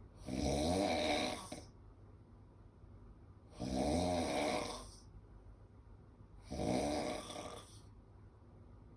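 A man snoring in his sleep: three snores about three seconds apart, each lasting a little over a second.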